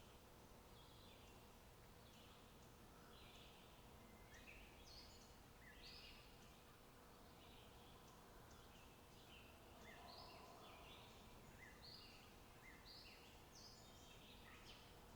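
Faint birdsong: small birds giving many short, high chirps in quick succession over a low steady hiss.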